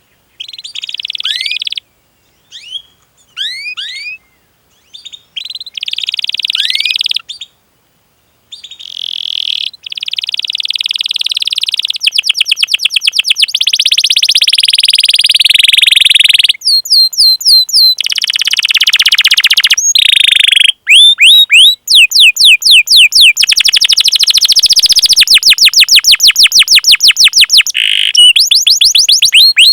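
Domestic canary singing: phrases of down-slurred chirps and fast rolling trills. The phrases are broken by short pauses in the first ten seconds, then run on without a break.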